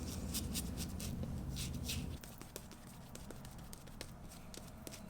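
Shaving brush whisking artisan shaving soap into lather in quick swishing strokes, about four or five a second. The strokes stop about two seconds in, leaving faint small clicks and taps.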